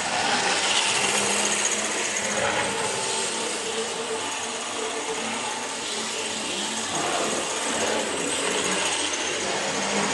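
Model trains running on the layout: a steady whir of small electric locomotive motors, with wheels running on the track.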